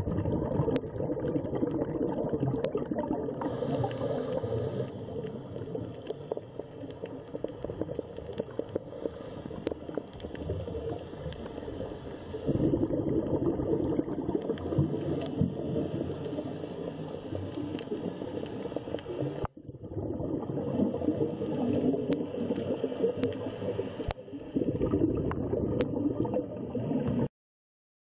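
Underwater water sound: a steady bubbling, gurgling rush with scattered sharp clicks. It swells louder about halfway through, cuts off abruptly about two-thirds of the way in, then starts again.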